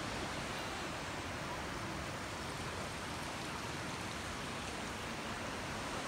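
Steady rush of a mountain waterfall and stream, an even hiss of falling water.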